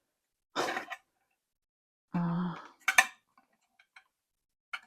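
Light clicks and clinks from wiring and small parts being handled in a lathe's control box, with one sharp click about three seconds in. A brief voiced sound comes a little after two seconds.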